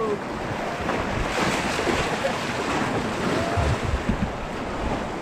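Steady rush of river water around a rafting boat, with wind buffeting the microphone.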